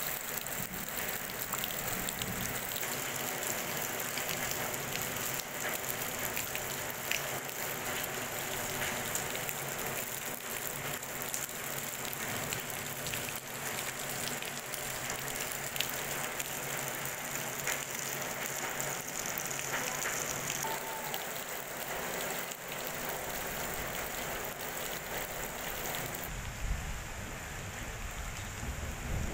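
Rain falling steadily on the ground and leaves, a dense patter of drops. A low rumble comes in near the end.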